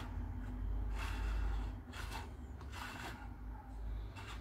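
A 3D-printed PLA plastic bowl being slid and turned by hand on a wooden desktop: about five short scraping rubs over a low handling rumble.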